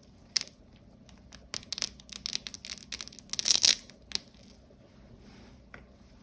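3D-printed support material being broken out of a keycap's stem cavity. A sharp snap comes first, then a run of small cracks and clicks. These build to a dense crackling burst about three and a half seconds in, and one last snap follows.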